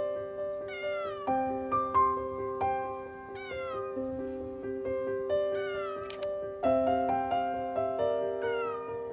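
A cat meowing four times, each call falling in pitch, over background piano music.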